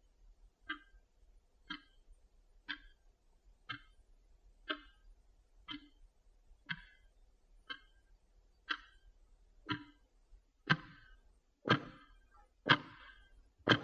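Clock ticking once a second, counting down the timed study pause of an exam recording; the last four ticks are louder.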